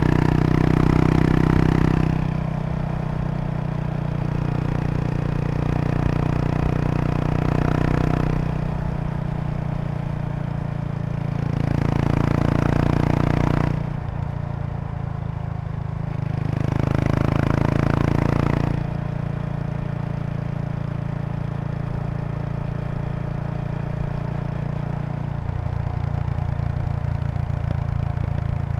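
Exhaust of a 2003 Kawasaki Estrella RS, a 250 cc air-cooled single, through a Yamato aftermarket muffler, while riding at an easy pace. It gets louder with throttle openings at the start and twice more around the middle, and settles to a steadier, softer note in between.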